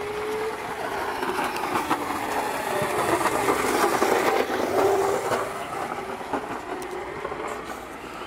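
A motor running, its noise swelling to a peak about four seconds in and then fading, with a faint hum under it.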